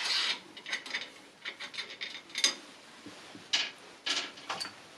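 Loose steel screws and a wrench clinking, clicking and scraping against the metal cross slide of a lathe as screws are taken out and swapped, in short irregular knocks, one with a brief metallic ring.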